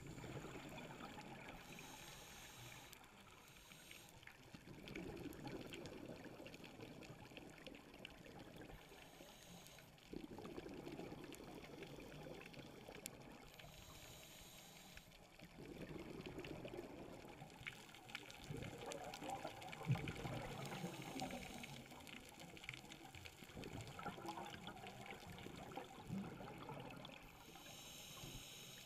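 Scuba diver breathing through a regulator underwater: slow cycles of exhaled bubbles gurgling for a few seconds at a time, broken now and then by a short hiss of inhalation.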